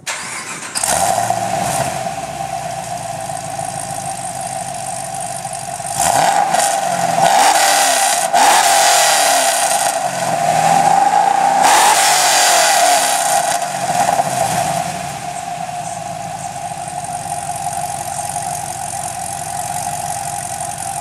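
2010 Chevrolet Camaro engine fitted with SLP headers, high-flow catalytic converters and the stock rear exhaust, heard from behind the tailpipes. It starts about a second in and idles, is revved up and down three times in the middle, then settles back to a steady idle, with a steady whine under it.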